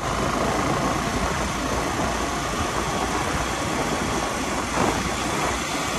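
Motorcycle engine running steadily while the bike is ridden along, with wind and road noise.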